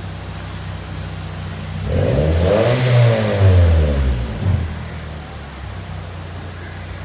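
Toyota Vios NCP93's four-cylinder engine idling through its newly fitted exhaust, then revved once about two seconds in. The pitch climbs and falls back to idle over about two and a half seconds.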